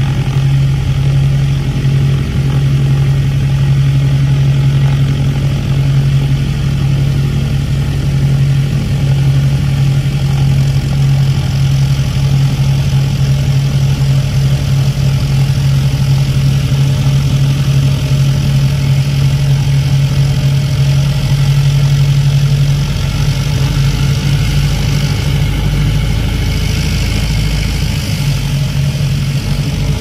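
Twin piston engines of an Aero Commander L-26B running at taxi power, heard from inside the cockpit as a loud, steady drone. About 23 seconds in, the steady hum gives way to a rougher, pulsing beat.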